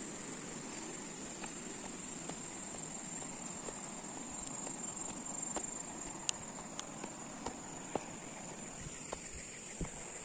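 Footsteps on a dirt trail, with several sharp clicks of shoes on stones in the second half, over a steady high-pitched drone of insects in the grass.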